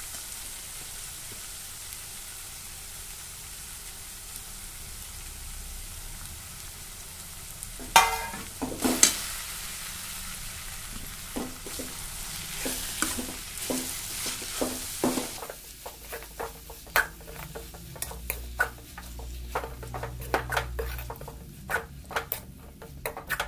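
Grated raw mango and onion tempering sizzling in oil in a metal kadai. From about eight seconds in, a metal slotted spoon knocks and scrapes against the pan as the mix is stirred, the knocks coming thick and fast over the last several seconds.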